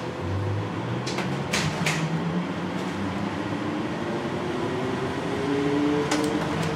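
Onboard running sound of an NAW/Hess trolleybus on the move: its electric traction motor whines, rising steadily in pitch from about halfway through as the bus picks up speed, over road and tyre noise. A couple of short clicks come about a second and a half in.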